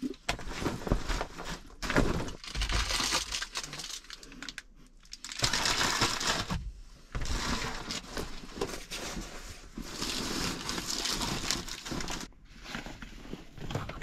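Rustling and crinkling of a nylon hiking backpack and a plastic water bottle being handled and packed, going on and off with short pauses.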